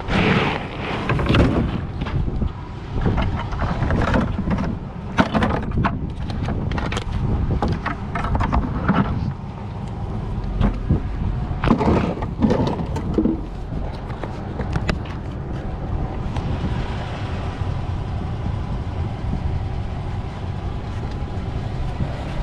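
Fishing gear being loaded into a pickup truck's bed: a cooler, buckets and tackle knocking and clattering against the bed and tailgate. The knocks thin out after about 14 seconds, leaving a steady noise.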